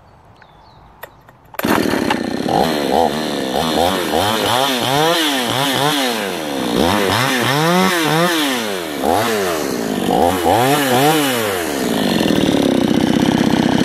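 Generic 52cc two-stroke chainsaw restarting: the engine fires up about a second and a half in and is revved up and down repeatedly, then settles into a steady run near the end.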